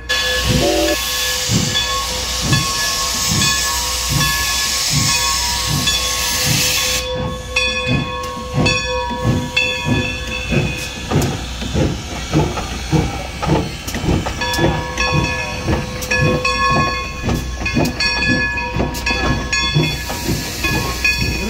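Steam locomotive (2-8-0 #40) getting under way: a loud hiss of steam for the first seven seconds or so, under a run of regular exhaust chuffs that slowly quicken once the hiss stops.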